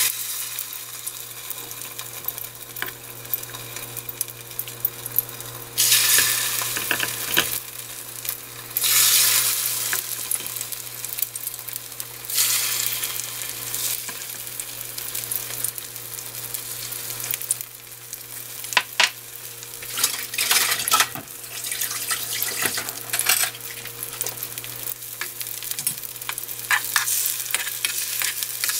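Egg-battered pollack fillets (dongtae-jeon) sizzling as they fry in oil in a nonstick frying pan, the sizzle surging louder several times in the first half as more battered pieces are laid in. Sharp clicks of metal spoons against the pan come in the second half.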